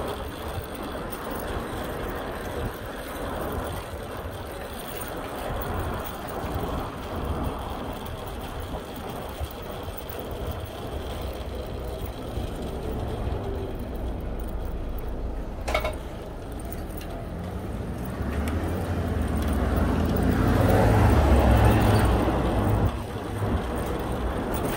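Street traffic and road noise heard from a moving bicycle, a steady low rumbling hiss. A single sharp click comes midway, and a louder low rumble swells near the end before dropping away sharply.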